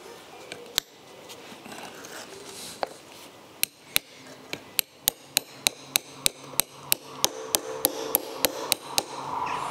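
Hammer tapping a screwdriver against a part on the rusty steel housing of an old starter motor to work it loose: a couple of single taps, then from about three and a half seconds in a steady run of sharp metallic taps, about three a second.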